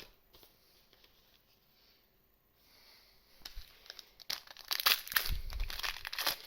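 Foil wrapper of a trading card booster pack crinkling and tearing open: a run of crinkles and rips that starts about three and a half seconds in and is loudest around five seconds.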